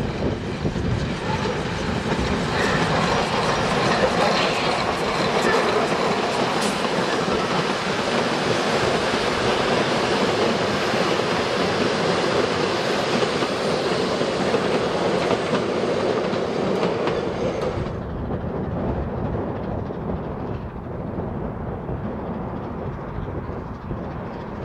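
Steam train hauled by W class locomotive W934 passing close by, its carriages rolling past on the narrow-gauge line. About three quarters of the way through, the sound changes suddenly to a duller, quieter train noise.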